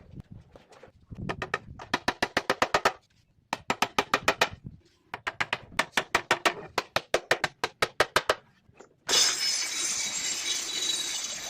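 Rapid, light hammer taps in three quick bursts, then about nine seconds in a circular saw starts and runs loudly, cutting wood.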